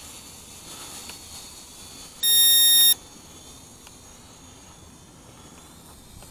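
A single high electronic beep, about three-quarters of a second long, a little over two seconds in, over faint steady hiss.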